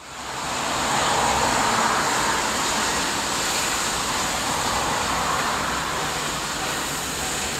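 Steam locomotive approaching through a tunnel, heard as a steady rushing rumble with a high hiss and no distinct exhaust beats. It rises quickly in the first second, then holds level.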